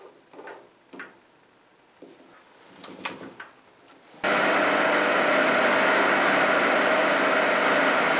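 A few light metallic clicks and knocks as a short piece of round bar is fitted into a three-jaw lathe chuck. About four seconds in, a metal-turning lathe starts suddenly and runs steadily at a constant pitch while it turns down a short metal punch.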